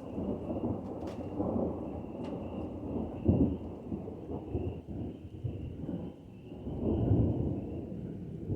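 Thunder rumbling in a long, rolling peal that swells loudest about three seconds in and again about seven seconds in.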